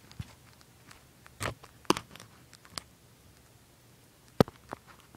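Dry bark-mulch substrate crunching and rustling in scattered bursts as a tegu moves and digs through it, with a few sharp knocks; the loudest knock comes about four and a half seconds in.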